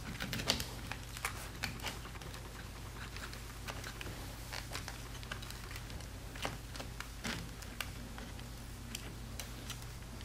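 Scattered light clicks and taps as a MacBook Pro logic board, with the MagSafe board still attached, is worked loose and lifted out of its aluminium case, over a steady low hum.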